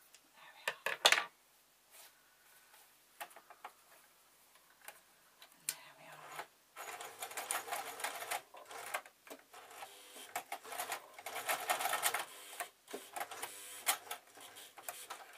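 A few sharp scissor snips about a second in. From about seven seconds the old Frister+Rossmann sewing machine runs in stop-start bursts of rapid stitching, labouring as it sews through several layers of leatherette.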